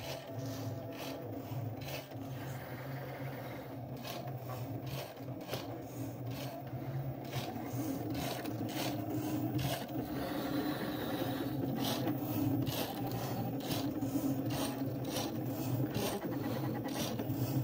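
Cricut Maker 3 cutting machine running its knife blade through 2 mm heavy chipboard: a steady motor hum under a dry rasping of the blade dragging through the board, with frequent short ticks as the carriage and blade housing move and turn. It is one of many shallow passes needed to cut through the thick board.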